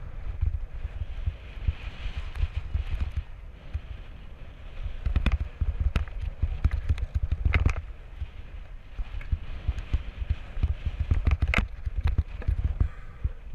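Mountain bike rolling fast down a rocky dirt singletrack: tyres crunching over dirt and loose rock, with several sharp clacks and rattles from the bike as it hits rocks. A heavy, uneven wind rumble on the microphone sits under it all.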